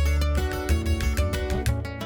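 Background music led by plucked and strummed guitar over a steady bass line.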